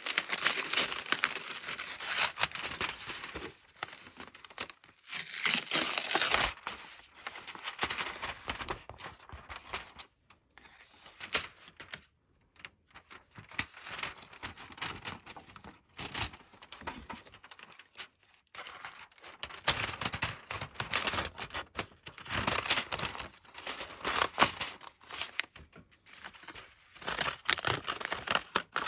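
Paper from a window envelope being pulled apart, crinkled and torn by hand, in repeated bursts with short pauses between.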